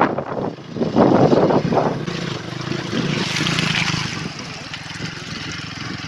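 Honda CRF150L's single-cylinder four-stroke engine running as the motorcycle wades through a muddy puddle, with water splashing around the front wheel. Wind buffets the microphone for the first two seconds.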